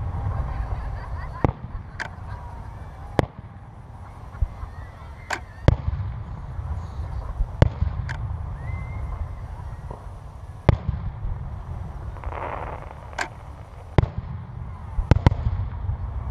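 Aerial fireworks shells bursting: about a dozen sharp bangs at irregular intervals a second or two apart, over a steady low rumble.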